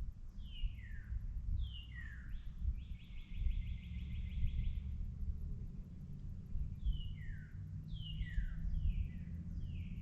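Songbirds singing at dawn: clear, downward-slurring whistled notes repeated in pairs, and a rapid trill of about two seconds near the middle, over a steady low rumble.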